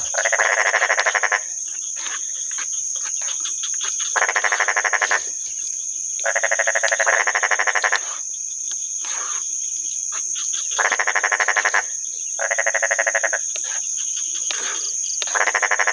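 Frogs calling at night: rattling calls about a second long, each made of rapid pulses, repeated about seven times with gaps of a few seconds. A steady high-pitched drone runs underneath.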